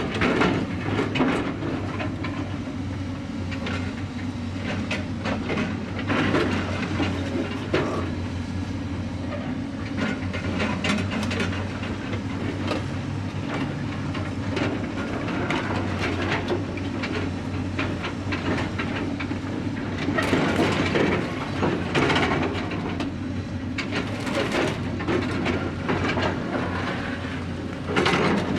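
Construction site ambience: a steady low machine hum under frequent knocks and clatter, with louder noisy stretches about two-thirds of the way through and a sharp burst near the end.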